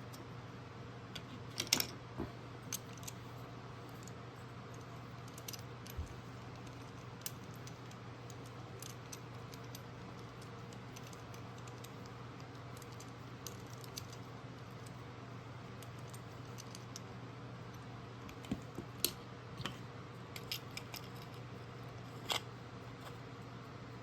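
Scattered small clicks and light taps of small hard parts being handled and set down, over a steady low hum. The clicks are a few near the start and a cluster near the end.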